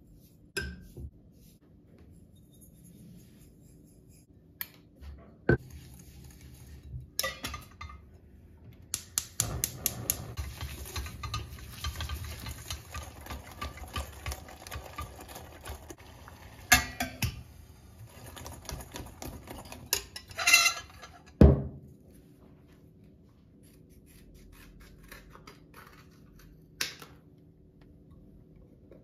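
Small metal whisk beating egg yolks and sugar in a glass bowl, clinking rapidly against the glass for about ten seconds in the middle. A few louder knocks of the bowl and utensils come around it.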